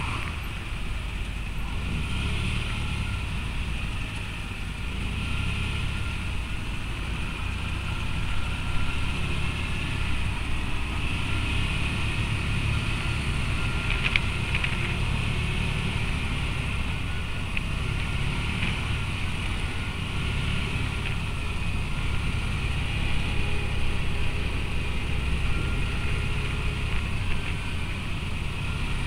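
Side-by-side utility vehicle engine running steadily at road speed, heard from aboard the moving vehicle, with a constant low rumble and a few faint clicks about halfway through.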